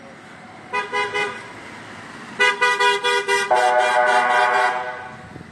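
Vehicle horns honking: a few short toots about a second in, then a run of rapid toots, then a longer held honk of a different pitch that fades out near the end.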